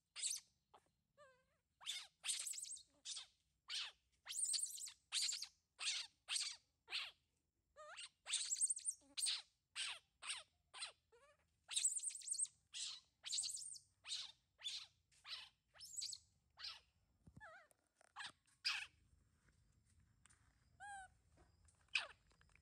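Baby monkey squealing over and over in short, high-pitched cries, about two a second, which die away about nineteen seconds in and start again near the end.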